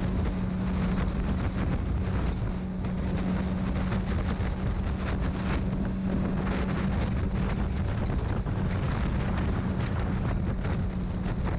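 Honda CBR600RR's inline-four engine running at a steady cruise, half buried under heavy wind rush on the bike-mounted microphone. The steady engine note drops away about eight seconds in.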